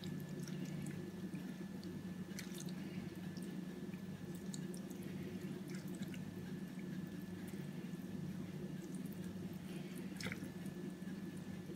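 Faint, scattered wet squishing of hands pressing a moist rice-and-herb filling into a tripe pouch (osbane), over a steady low hum.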